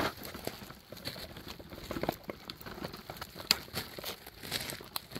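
Thin clear plastic bag crinkling and rustling in irregular little crackles as it is handled.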